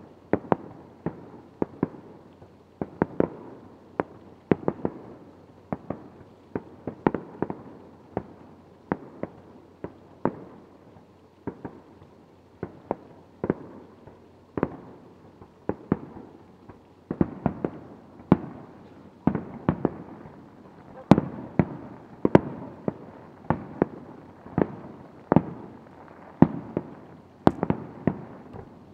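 Aerial firework shells bursting in a quick, irregular string of booms, about one or two a second, each trailing off in an echo. The sharpest reports come about two-thirds of the way through and again near the end.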